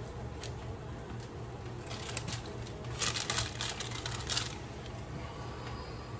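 Chef's knife cutting limes on a plastic plate: scattered light clicks and taps of the blade on the plate, with a run of quick sharp clicks about three seconds in, over a low steady hum.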